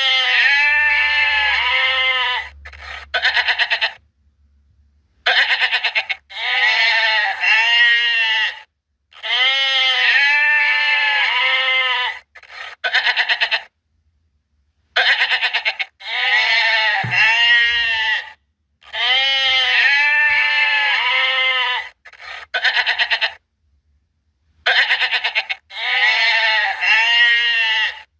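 Goats bleating: a string of long, wavering bleats, each a quick series of rises and falls in pitch lasting one to three seconds, broken by short pauses.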